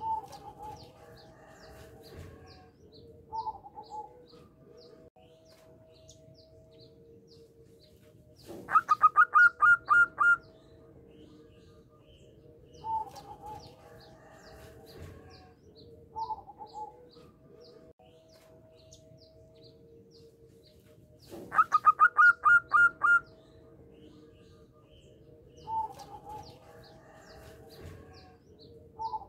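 Zebra dove (perkutut) cooing song. Twice, a loud burst of about a dozen rapid cooing notes lasts roughly two seconds, with softer short coos every few seconds between the bursts. Faint high chirps of small birds keep up throughout.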